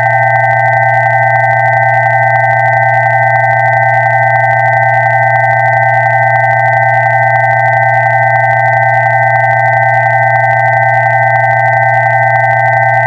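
Electronically generated pure tones sounding together and held perfectly steady: a low hum beneath a cluster of mid-pitched tones and two higher ones, with no change in pitch or loudness.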